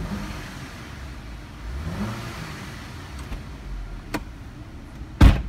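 Audi A5 engine blipped twice, its pitch rising at the start and again about two seconds in. A sharp click follows, then a loud thump near the end as a car door is shut.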